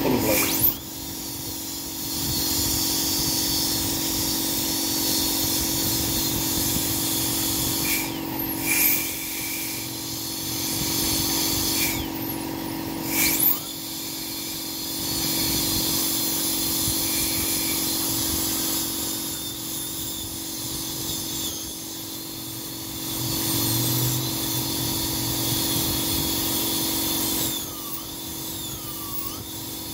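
Dental high-speed handpiece whining steadily as it grinds down upper teeth, a preparation for porcelain crowns, over a low steady hum. The drill cuts out twice, about a third of the way in and again a few seconds later, and each time spins back up with a rising whine.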